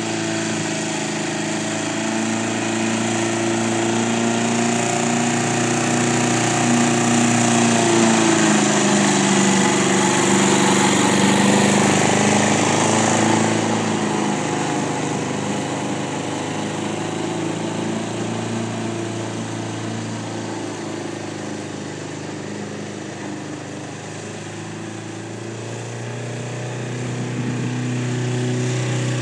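Homemade radio-controlled lawn mower running steadily as it drives over the grass. It gets louder in the middle as it passes close, fades as it moves away, and grows a little louder again near the end.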